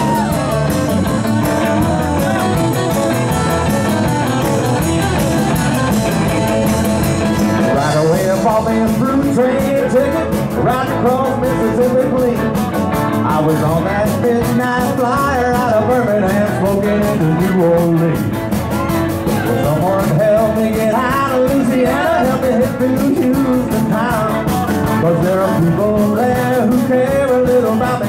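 Live rock-and-roll band playing, with electric guitars and drums, and male voices singing into microphones over them.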